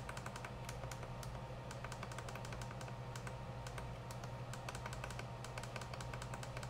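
Quick, irregular clicking of a FrSky Taranis X9D Plus radio transmitter's menu buttons as a name is entered letter by letter, over a steady low hum.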